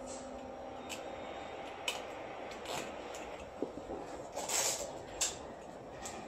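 A few light, sharp clicks and a short rustle over a steady room hum, from a plastic tamper seal being fastened on a stainless steel case cart's door latch and items being handled.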